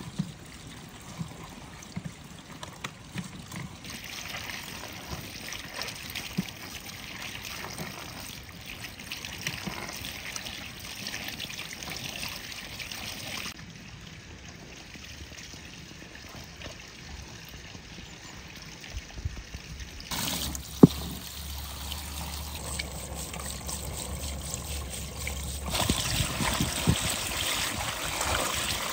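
Running water splashing over produce being rinsed by hand in colanders: lemons first, then bunches of dill and cilantro, with a single sharp knock about two-thirds of the way through.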